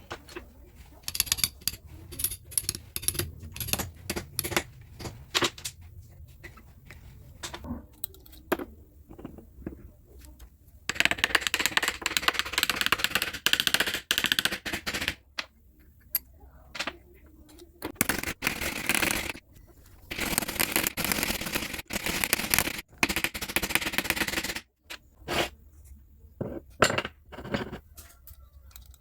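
Metal parts being worked by hand: many sharp clicks and knocks, with several longer stretches of scraping noise.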